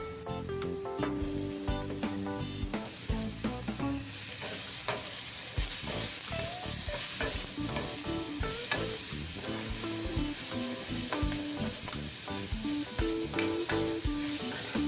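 Raw banana slices sizzling in hot oil in a metal kadai, stirred and turned with a steel spatula that knocks and scrapes against the pan. The sizzle grows louder about four seconds in.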